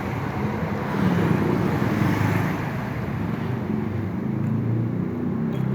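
Road traffic noise with a steady low rumble of vehicles and wind buffeting the microphone.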